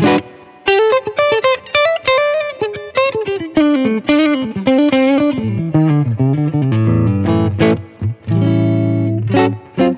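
Gibson ES-335 electric guitar on its neck pickup, played through a Fractal amp modeller patch of a 1969 Fender Vibrolux with spring reverb. It plays a quick line of short single notes, then held chords near the end.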